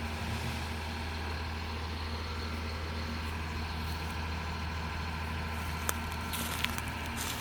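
Heavy truck's engine running steadily at idle, a low hum with a couple of faint clicks near the end.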